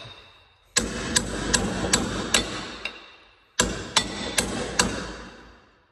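Hammer striking an aluminium tube laid on a steel anvil, denting the tube in for bolt clearance: two runs of blows about two and a half a second, five and then four, each with a metallic ring.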